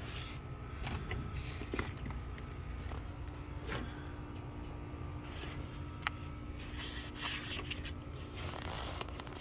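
Scattered light clicks and taps from handling a gas furnace's condensate drain piping, over a steady low hum.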